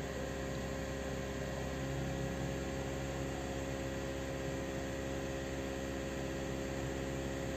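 Mazda CX-5's 2.0L Skyactiv four-cylinder engine idling steadily in Park, heard inside the cabin as a constant low hum.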